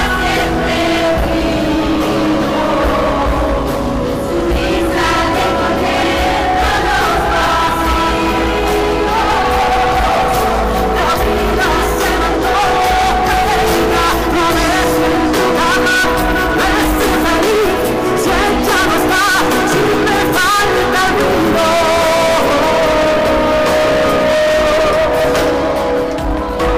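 A pop song played by a band with a singer, loud and continuous.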